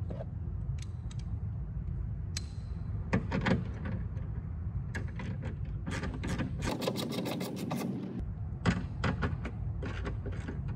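Socket ratchet clicking as it turns a 10 mm mirror-mount bolt inside a car door, with scattered clicks and knocks and a quick run of about a dozen ratchet clicks about seven seconds in. A steady low rumble sits underneath.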